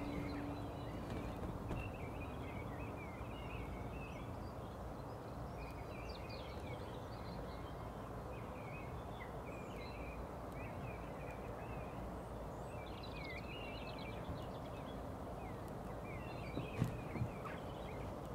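Small songbirds chirping and twittering over a steady background hiss of rural ambience. Two short thumps come near the end.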